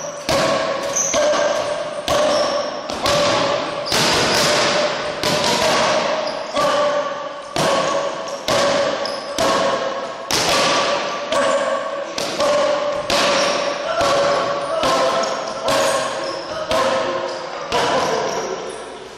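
Boxing gloves smacking into focus mitts during pad work: sharp hits, about two a second, in uneven combinations, each ringing briefly in the hall.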